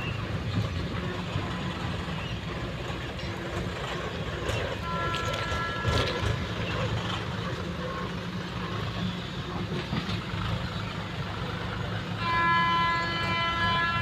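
Horn of an approaching train that is still out of sight, sounding twice over a steady low rumble: a short blast about five seconds in and a longer, louder one near the end.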